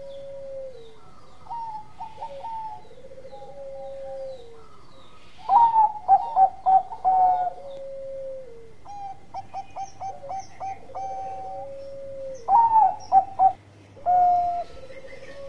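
Bangkok-type zebra dove (perkutut) singing its cooing song: repeated phrases of quick coo notes, with loud rapid staccato runs about six seconds in and again near the end.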